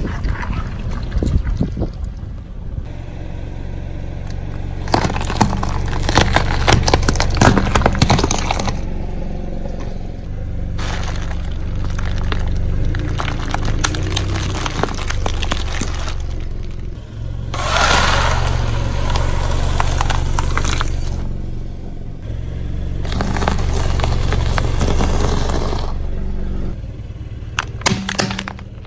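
A car engine runs low and steady while a tyre rolls over objects and crushes them. Repeated stretches of crunching and cracking last a few seconds each, and the loudest burst comes about eighteen seconds in.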